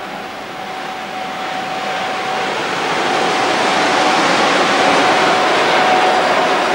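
ÖBB class 1020 electric locomotive passing close by: the noise of its wheels and running gear on the rails grows louder over the first three seconds and then holds steady, with a faint steady whine underneath.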